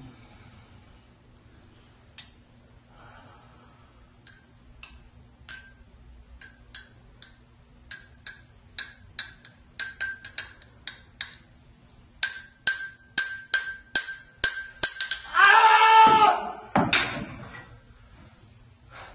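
Small items dropped one at a time into a china cup, each landing with a bright ringing clink, slow at first and quickening to about three a second. Near the end a loud wordless vocal cry lasts about a second and is the loudest sound.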